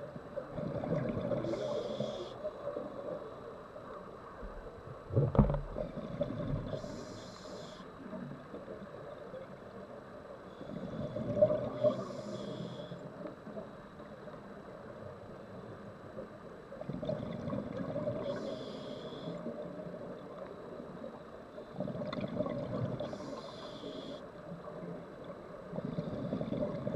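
Scuba diver breathing through a regulator, heard underwater: a bubbling rumble and then a short hiss, about once every five seconds, for some five breaths. A single sharp knock about five seconds in.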